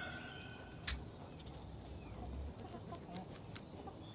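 Chickens clucking faintly, with a sharp click about a second in and another near the end.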